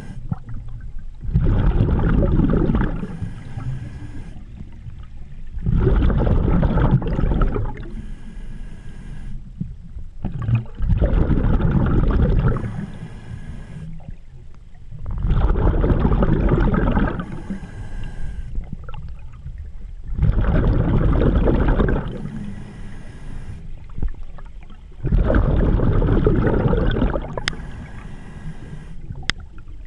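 A scuba diver breathing underwater through a regulator: a short, high hiss on each inhale, then a louder, longer rush of exhaled bubbles about two seconds long. The cycle repeats about every five seconds, six breaths in all.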